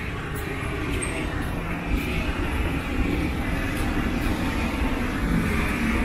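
Steady low rumble of passing vehicles, slowly growing louder.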